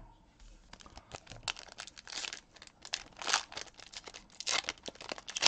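Donruss Optic foil trading-card pack being torn open and crinkled by hand: a run of crackly rustles and rips that starts about half a second in and grows louder in the second half.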